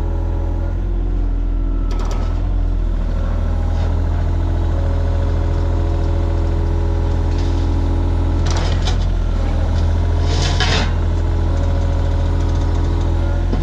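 Heavy vehicle engine running steadily with a deep, even hum, with brief hissing noises a few times.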